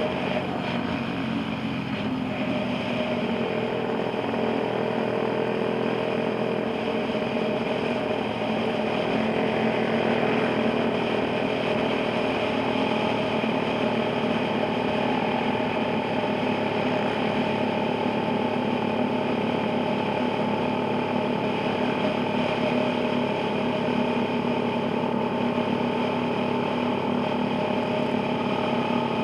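Motorcycle engine running steadily at cruising speed with wind and road noise, heard from on board the moving bike. The engine note holds steady, with a higher tone setting in about halfway through.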